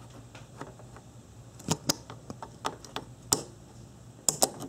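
A few scattered light metallic clicks and taps from hand tools and a gloved hand working a spring hose clamp on a throttle body's coolant line, with three quick clicks close together near the end.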